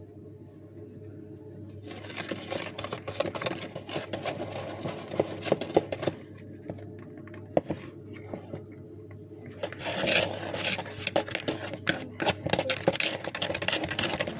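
Irregular scraping and small knocks from baking utensils handled at a plastic mixing bowl, growing into denser clattering about ten seconds in.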